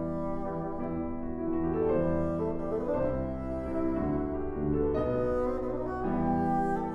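Bassoon and piano playing a classical chamber piece: held low bassoon notes over sustained piano chords.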